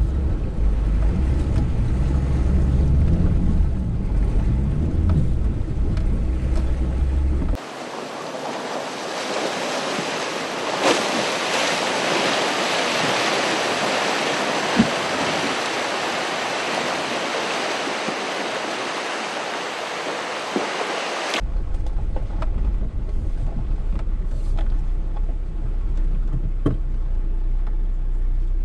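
An SUV wading across a shallow river. There is a heavy low rumble of engine and wind on the hood-mounted camera, then a long stretch of rushing, splashing water as the vehicle pushes through, then the low rumble again.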